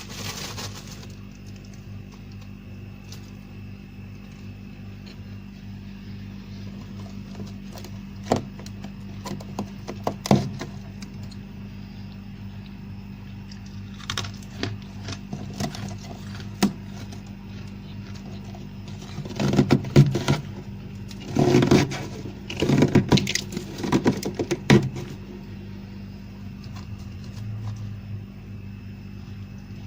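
Frost being scraped from a fridge freezer in short bursts of scraping and crunching. The bursts are sparse at first and become dense and loudest about two-thirds of the way through, over a steady low hum.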